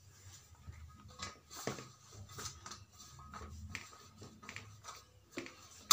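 Damp cotton cloth being draped and pressed over a ball of dough in a stainless steel plate: faint rustling and scattered soft knocks, with one sharp click right at the end.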